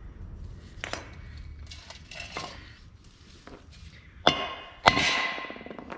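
Hammer striking a steel brake rotor to knock it off the wheel bearing hub: a few lighter knocks, then two loud clanging strikes about four and five seconds in, the rotor ringing after each.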